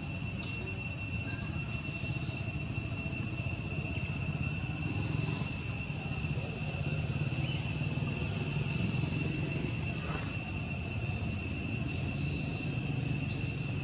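Insects droning steadily in one unbroken high-pitched tone, with a fainter higher tone above it, over a low rumble.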